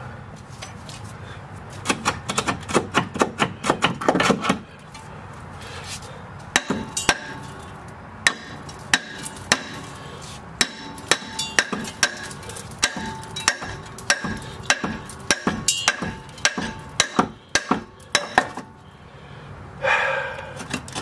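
Hammer blows on steel suspension parts: a quick flurry of strikes, then steady blows about two or three a second, each with a short metallic ring.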